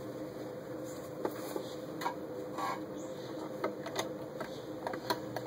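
Irregular light clicks and fabric rustles from hands arranging folded layers of fabric under the presser foot of a sewing machine that is not yet stitching, over a faint steady hum.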